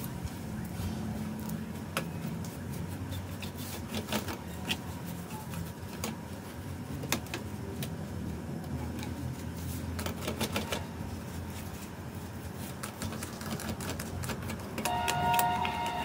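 Light clicks and rattles from a rusty Corona SCM manual typewriter's metal parts as it is brushed clean with a paintbrush, over a steady low hum. A brief high-pitched tone sounds near the end.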